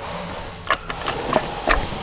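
Metal transmission parts clinking and knocking against each other as they are handled during a teardown, three or four sharp clinks with a short ring, the loudest near the end.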